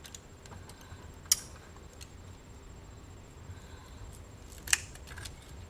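Faint scratching and small clicks of a label being picked and peeled off a plastic CB radio faceplate, with two sharper clicks, one about a second in and one near the end.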